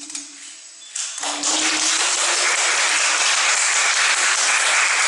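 The last notes of the recorded song fade out, then about a second in the audience breaks into applause, which holds steady.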